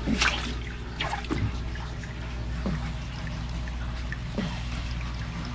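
Small submersible aquarium filter running in a tub of water, with a steady low hum and water trickling and dripping at its outlet. A few brief drips or plops stand out now and then.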